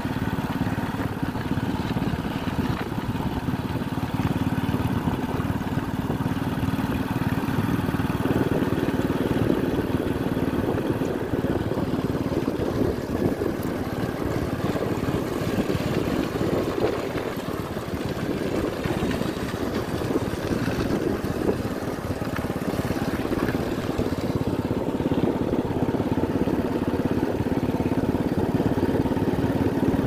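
Motorcycle engine running steadily at cruising speed, with rattling and bumping from riding over a rough dirt track.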